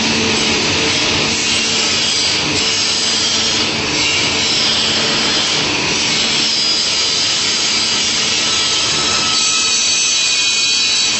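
Woodworking panel saw, its main blade and scoring blade running at speed and cutting through a wooden board, with a steady motor hum under the hiss of the cut.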